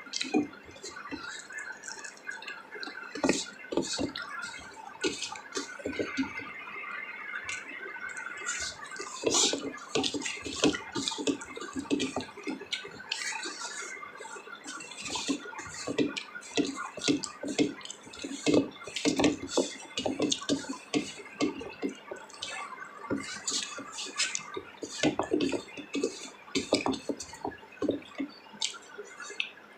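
Close-up wet mouth sounds of people eating a home-cooked meal: chewing and lip-smacking, a continuous run of short moist clicks and smacks.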